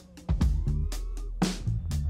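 Background music with drums and bass: a brief lull at the start, then the beat comes back in.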